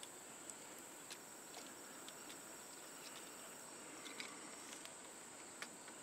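Faint, scattered small clicks of a screwdriver and GFCI receptacle being handled at the terminal screws, over a steady high-pitched insect trill.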